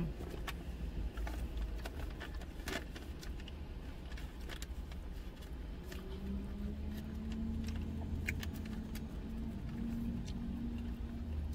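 Small clicks and crinkles from a plastic takeout container and taco wrapping being handled while eating, over a low steady rumble inside a car. A steady low hum joins about six seconds in.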